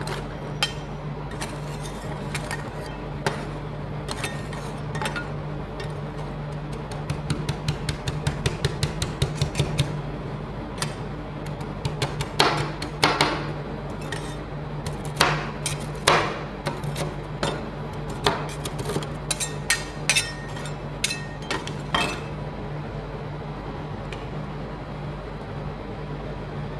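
Metal spatulas clacking and chopping on the cold steel plate of a rolled ice cream machine, over a steady low hum. There is a fast run of taps about seven seconds in, then louder separate strikes until about 22 seconds in, after which only the hum remains.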